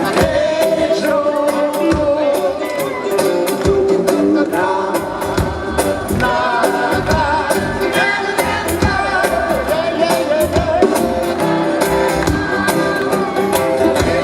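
Live pop-rock band playing with singing over a steady drum beat.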